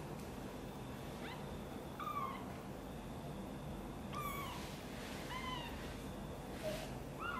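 A very young kitten mewing: five short, high-pitched mews at uneven intervals, each dropping in pitch at its end.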